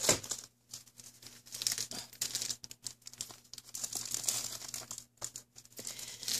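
Crinkling and rustling of a packet of printed paper napkins as it is picked up and handled, in uneven spurts with short pauses.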